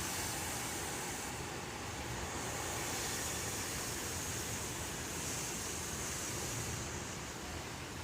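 Steady rushing wind noise that swells and eases slowly, without gusts hitting the microphone.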